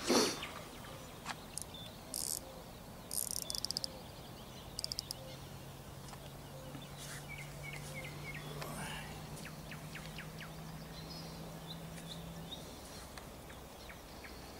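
Faint riverbank ambience with birds chirping now and then, a few short scratchy bursts in the first five seconds, and a faint steady low hum that fades out near the end.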